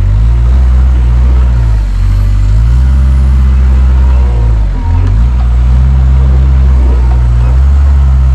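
Diesel engine of a compact farm wheel loader running loud while it drives and lifts round hay bales off a trailer. Its engine speed drops and climbs back several times.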